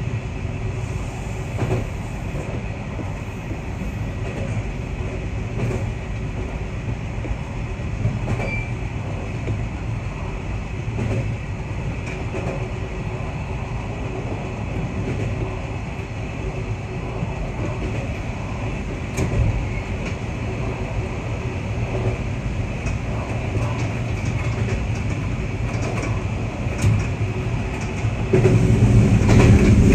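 JR Kyushu BEC819 series DENCHA battery-electric train running along the track, a steady rumble of wheels on rail with a faint steady hum and occasional light clicks. The noise gets louder and heavier near the end.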